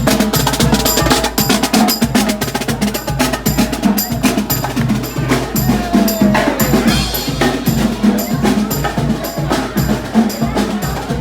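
Marching band drums playing: rapid snare strokes, sharp stick clicks and bass drum beats in a steady cadence.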